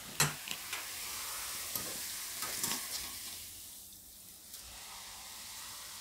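Nylon sev deep-frying in hot oil in a kadai, the oil sizzling steadily while a wire-mesh skimmer lifts and turns the nest. There is a short knock just after the start and a few light clicks, and the sizzle dips for a moment around the middle.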